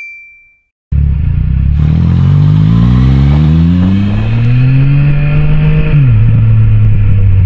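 Motorcycle engine heard from the rider's seat, pulling away: its pitch climbs steadily for about four seconds, drops sharply about six seconds in, then holds steady, with wind hiss over the microphone. A short chime rings and fades at the very start.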